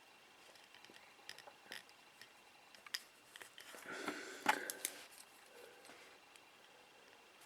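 Faint small clicks and scratches of fingernails working a wire into a Hubsan X4 H107L micro drone's small plastic frame, with a louder cluster of clicks and rustling a little past halfway.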